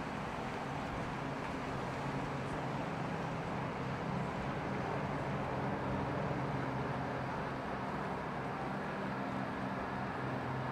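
Tugboat's diesel engine running steadily with a low, even hum, over the rush of churning water from its wake.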